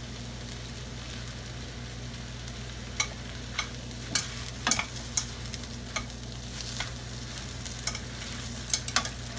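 Glass noodles and vegetables sizzling in a stainless steel skillet as they are tossed with a spatula and chopsticks, with scattered sharp clicks and scrapes of the utensils against the pan from about a third of the way in.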